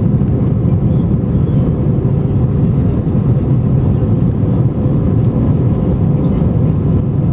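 Inside the cabin of an Airbus A320-232 in flight after takeoff: the steady low roar of its IAE V2500 turbofan engines and airflow, heard from a window seat behind the wing, with a faint steady hum.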